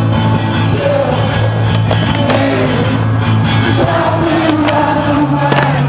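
Music: a song with a sung melody over a steady, sustained bass line.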